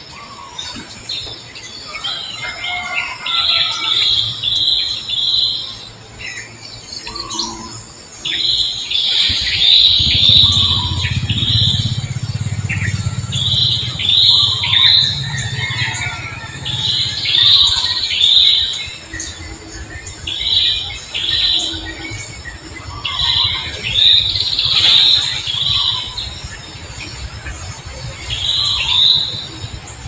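Infant macaque squealing: short high-pitched squeaks in quick runs of two to four, repeated every few seconds.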